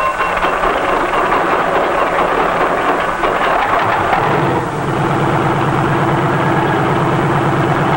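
Small piston-engine helicopter running on the ground with its two-blade main rotor turning, warming up before takeoff. A steady engine-and-rotor noise settles into an even pulsing hum about four seconds in.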